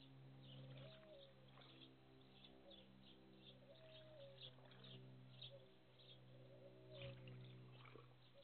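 Faint outdoor ambience: small birds chirping over a low steady hum, with a short falling call every few seconds.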